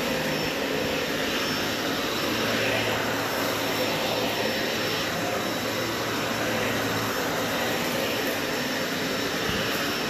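Dyson upright vacuum cleaner running steadily while it is pushed over carpet. A low hum under the suction noise drops away about seven seconds in.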